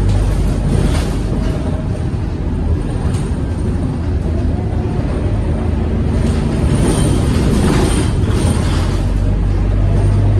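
Scania K230UB city bus under way, heard from inside the saloon near its rear-mounted five-cylinder diesel engine: a steady low drone with road and body noise over it, swelling a little between about six and nine seconds in.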